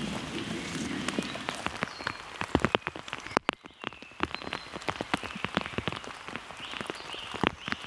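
Rain falling in woodland: drops tapping irregularly and sharply on close leaves and surfaces over a soft hiss, with a short drop in level about halfway through.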